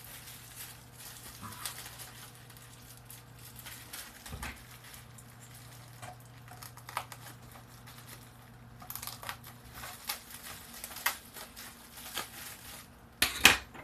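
Bubble wrap being handled, slit and pulled open by hand: irregular crinkling and crackling of plastic, with a louder burst of rustling near the end.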